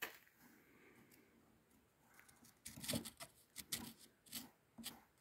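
Near silence, then from about two and a half seconds in, a run of short, faint scrapes. A steel pick is scratching calcified deposits out of the clogged cooling-water passages of an outboard motor's cylinder head.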